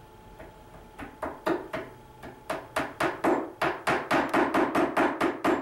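Claw hammer tapping a small nail into a wooden corner mount: a few light taps at first, then a quickening run of harder, ringing strikes, about five a second, toward the end.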